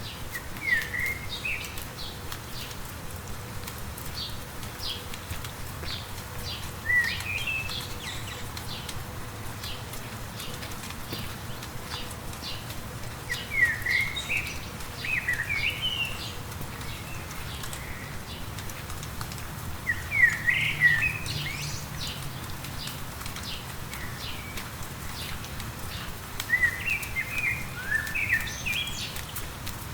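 A songbird singing short phrases of quick chirping notes, one phrase about every six seconds, over light rain with scattered drop ticks and a low steady rumble.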